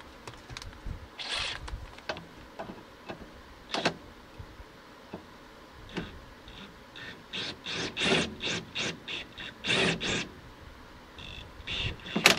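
DeWalt cordless impact wrench fired in a run of short bursts from about halfway in, driving the lower strut bolt in until snug, with a few more bursts near the end. Before that come scattered clicks and knocks of metal parts being handled.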